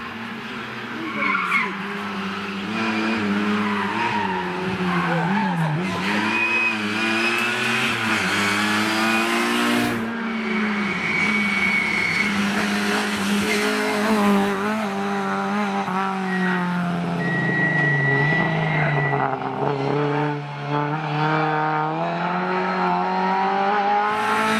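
Lada 2107 rally cars' engines revving hard, pitch climbing and dropping repeatedly through gear changes and braking into a chicane, with tyres squealing briefly several times.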